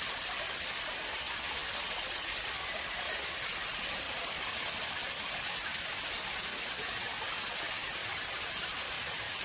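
Water flowing in an artificial pond, a steady, even rushing hiss.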